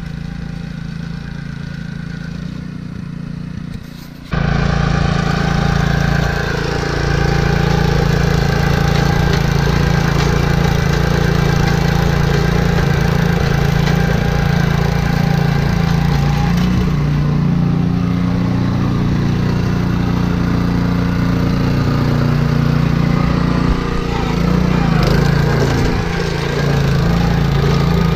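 Honda single-cylinder engine of a Ryan Lawnaire walk-behind core aerator running steadily under load as it punches plugs from a lawn. It is heard from a distance at first, then suddenly much louder and close up after about four seconds.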